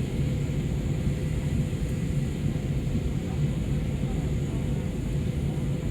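Steady low rumble of an Airbus A320's engines and airflow, heard from inside the passenger cabin in flight, with a faint steady hum above it.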